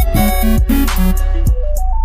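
Electronic dance music with a heavy kick drum, ticking hi-hats and a stepping synth melody.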